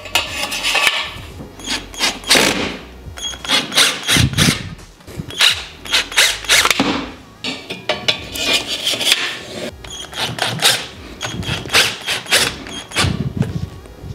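Metal futon-frame bars being handled and fitted together: repeated, irregular clanks and knocks of metal on metal.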